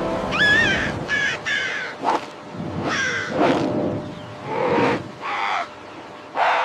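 A series of about eight short animal calls, some bending in pitch, spaced irregularly.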